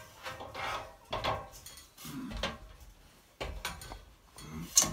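Footfalls and knocks on a metal ladder as someone climbs its rungs, an uneven run of clunks and clatters with rubbing between, the sharpest knock near the end.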